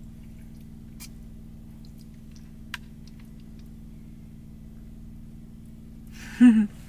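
A person eating noodles in a small space: a couple of faint sharp clicks over a steady low electrical hum. Near the end comes a short vocal 'mm' of reaction to the food.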